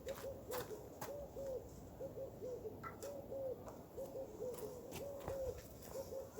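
A bird cooing in short repeated phrases of two or three soft notes, about one phrase a second, with a few faint clicks.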